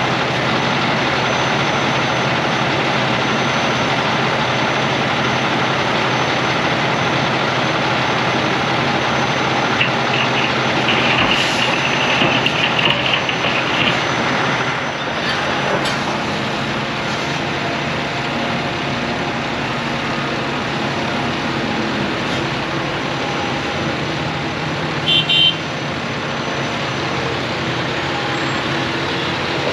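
A John Deere excavator's diesel engine runs steadily at a demolition site. About a third of the way in, rubble clatters and scrapes into a steel dump trailer as it is loaded. Near the end come a few short high beeps.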